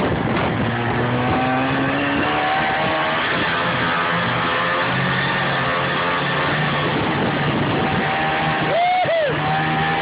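Snowmobile engine running under way, its pitch shifting slowly with speed and swooping quickly up and down twice near the end.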